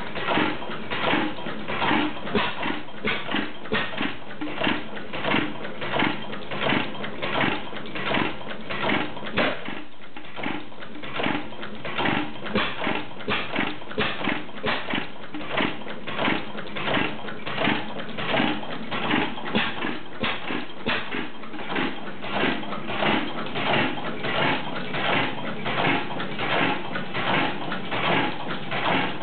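8 HP Goulds, Shapley & Muir hit-and-miss engine running, its flywheels turning with a steady clatter and a louder firing bang about once a second. The firing lets up for about a second around ten seconds in, then carries on.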